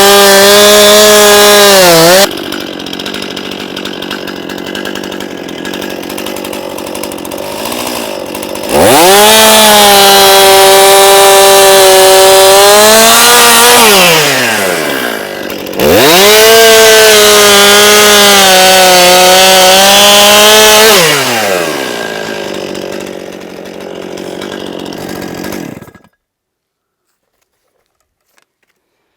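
Stihl MS 261 C-M two-stroke chainsaw cutting logs: three bursts at full throttle, the engine note sagging under load, with idling in between. The sound stops abruptly a few seconds before the end.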